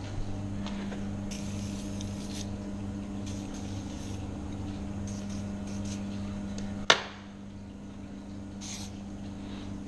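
Short hisses of an aerosol spray can being sprayed onto a dirt bike's engine and frame, three bursts of about a second or less, over a steady low hum. A single sharp click, the loudest sound, comes about seven seconds in.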